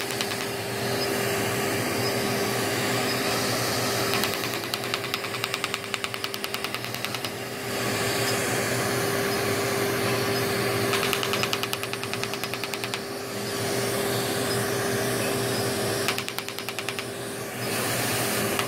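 Erbium (Er:YAG) resurfacing laser firing on facial skin: stretches of rapid, evenly spaced snapping clicks lasting a few seconds each, over the laser unit's steady hum and hiss.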